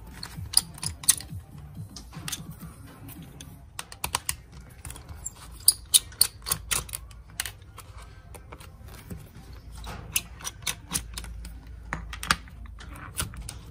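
Irregular sharp clicks and taps of small plastic parts and hand tools as a Beoplay A1 speaker is being taken apart, coming in clusters, busiest in the middle and again near the end.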